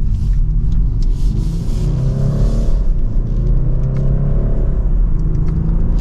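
Turbocharged 2.0-litre inline-four of a BMW 430i Coupe accelerating under throttle, heard from inside the cabin: the engine note rises, drops at an upshift of the 8-speed automatic near the middle, rises again and drops at a second upshift about five seconds in, over a steady low road rumble.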